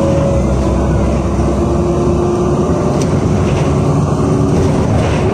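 Cabin noise of a LiAZ 5292.67 city bus under way, heard from inside: the YaMZ-53624 compressed-natural-gas engine and ZF automatic gearbox give a steady low hum with a few held tones, mixed with road noise. A single faint click comes about three seconds in.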